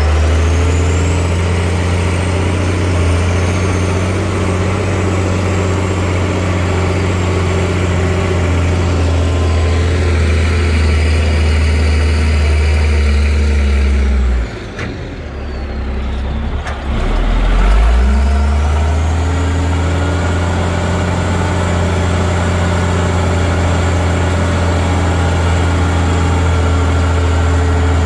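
Diesel engine of an off-road dump truck running steadily. About halfway through it drops back for a couple of seconds, then revs up again and runs on as the dump body tips up to unload.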